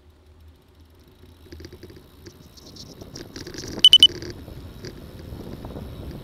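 Bicycle riding off with a camera mounted on it: rattling clicks and rising wind and road noise as the bike picks up speed. Three short, loud, high electronic beeps come in quick succession about four seconds in.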